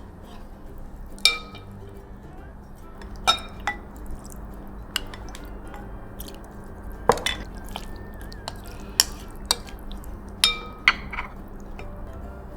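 Kitchenware clinking: utensils knocking against glass and ceramic dishes about nine times at irregular moments, a few strikes ringing briefly. Quiet background music plays under it.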